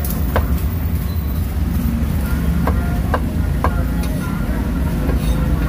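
Heavy cleaver chopping braised meat on a thick wooden chopping block: a sharp knock near the start, then three quick knocks a little before the middle. Under it runs a steady low rumble of passing traffic.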